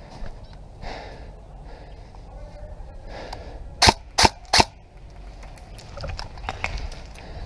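Three loud, sharp shots from an airsoft rifle fired from the shoulder, about a third of a second apart, a little before halfway through. Two short breathy puffs of the player's breathing come before them, and a few fainter clicks follow.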